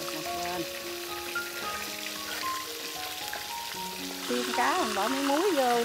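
Red tilapia pieces sizzling steadily as they shallow-fry in hot oil in a pan. Background music plays over it, with a louder wavering melody coming in about four seconds in.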